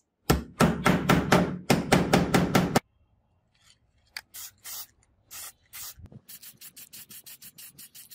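Hand rubbing or rasping strokes of an abrasive on a hard surface: a loud run of about five strokes a second for the first few seconds, a few separate strokes, then a quicker, quieter series of about eight a second near the end.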